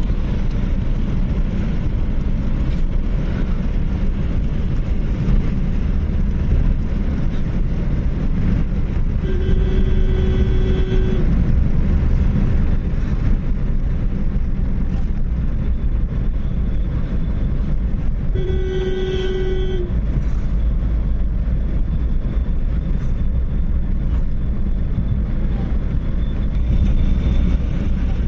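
Steady car engine and tyre noise heard from inside the cabin while driving along, with a vehicle horn honking twice, each blast a second or two long, about a third of the way in and again about two-thirds through.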